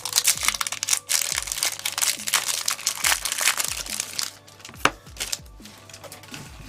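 Foil booster pack wrapper crinkling and crackling as it is torn open for about four seconds, then quieter handling with a few clicks. Background music with a steady beat plays underneath.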